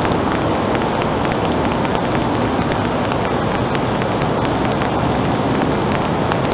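Steady rushing noise with no distinct event, and a few faint scattered clicks.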